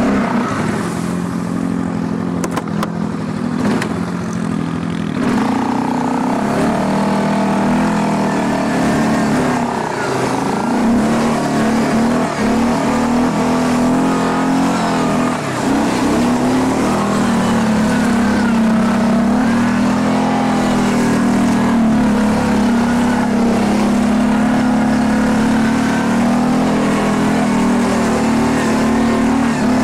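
Quad bike (ATV) engine running steadily under load, its revs dipping and picking up again a few times.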